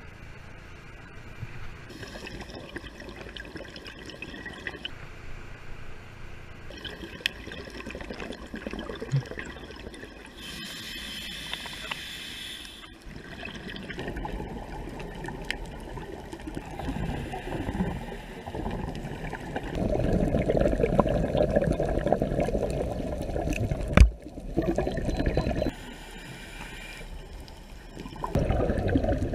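Muffled water noise and bubbling heard through an underwater camera during a scuba dive, cut into several short clips, with one sharp click about three-quarters of the way in.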